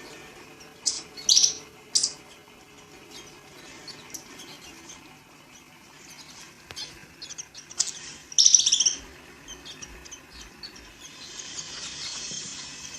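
Indian palm squirrel chirping: a few sharp, high-pitched calls about a second in, then a louder, rapid trilled run of calls around eight seconds in.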